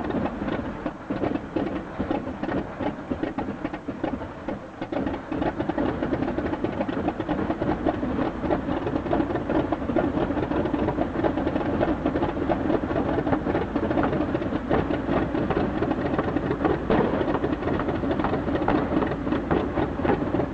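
Helicopter engine running with the rotor turning, a fast, steady beating chop over the engine noise. It dips briefly about four seconds in, then holds steady.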